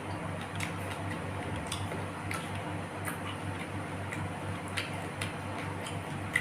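Mouth sounds of eating: irregular soft clicks and smacks of chewing, over a steady low hum.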